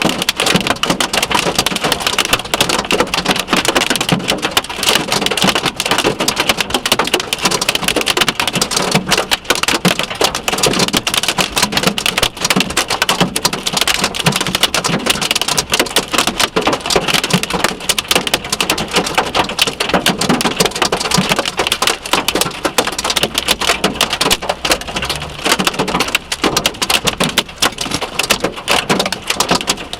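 Hail and heavy rain pelting a Subaru, a loud, dense, unbroken clatter of countless sharp impacts on the car's body and glass.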